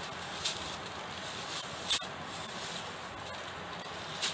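Dry coconut-leaf ribs (rachis) rustling and scratching as rope is pulled through and wound around the bundle to bind a broom, with a few short crisp rustles standing out.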